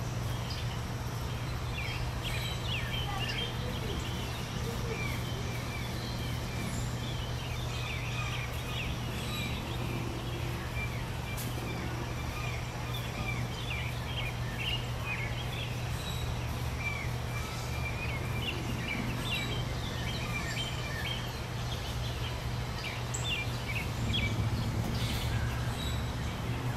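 Outdoor ambience: a steady low hum with many short, high bird chirps scattered throughout, getting a little louder near the end.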